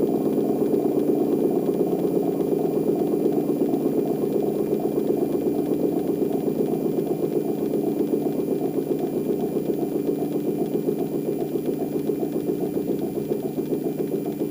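Low-tone unit of an old L138 three-port electric siren sounding a steady low tone with a fast flutter, growing slightly quieter toward the end.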